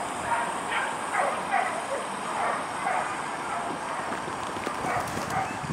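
Dogs barking and yelping excitedly, a short call about twice a second over steady background noise.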